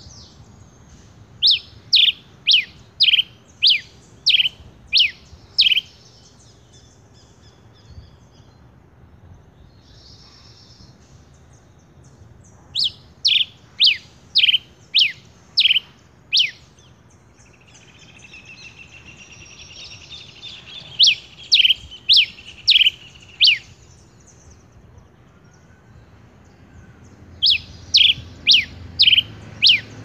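Male red pileated finch (tico-tico-rei) singing: four runs of loud, sharp down-slurred notes, about two a second, with pauses of several seconds between runs. A softer twittering sits under the third run.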